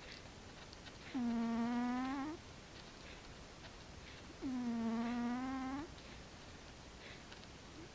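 Sleeping cat snoring: two drawn-out, pitched snores about three seconds apart, each a held tone that dips at its start and rises at its end.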